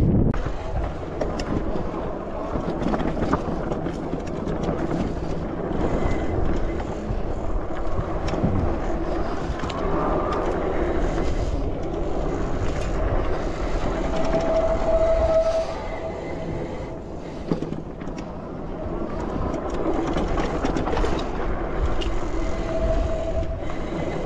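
Trax e-bike rattling and bumping down a rough dirt singletrack, with a steady rumble of tyres and frame over stones and ruts. The brakes squeak briefly, with a short held squeal a little past halfway and again near the end.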